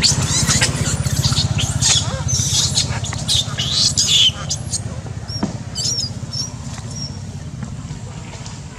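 Macaques squealing and squeaking: many quick, high-pitched squeals through the first half, then a few short chirps, over a steady low hum.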